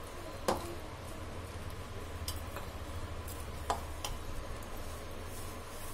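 Hand mixing wheat flour and water into dough in a plastic bowl, with a few light sharp clicks, the loudest about half a second in, over a low steady hum.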